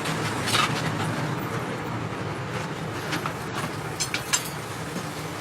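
Metalworking workshop noise: a steady low mechanical hum, with a few short sharp knocks, several of them close together about four seconds in.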